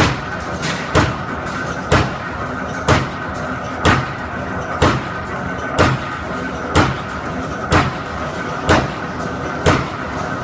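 Two-head punching machine punching and flaring holes for solar water heater tanks: a sharp bang about once a second over the machine's steady running noise.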